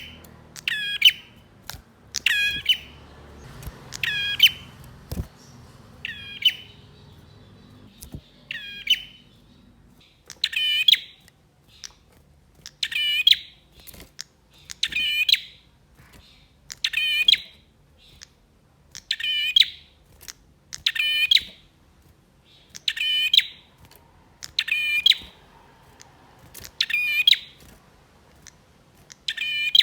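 A male prinia (prenjak) calling over and over in short, sharp, buzzy notes. The calls come about once a second at first, then settle to an even beat of one every two seconds or so, about sixteen in all.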